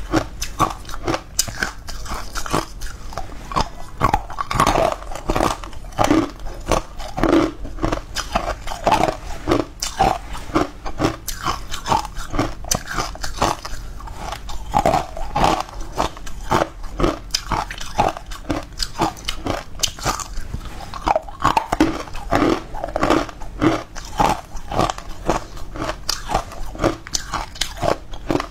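Close-miked eating: repeated bites into, and chewing of, green powder-coated cubes, with many sharp crunches in an irregular run.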